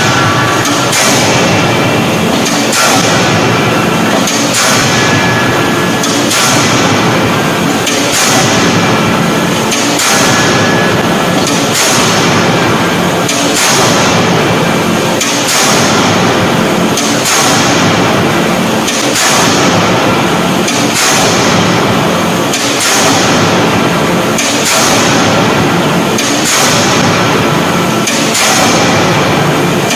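An 18-ton hydraulic closed-die forging hammer striking a red-hot workpiece in its die, one blow about every two seconds, over steady loud machinery noise.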